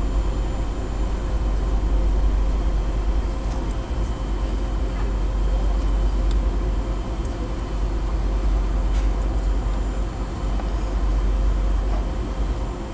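Cabin noise of a McDonnell Douglas DC-9-51 taxiing: a steady low rumble with faint steady whines from its rear-mounted Pratt & Whitney JT8D turbofans at taxi power, heard muffled from a forward seat. A few faint ticks are heard over it.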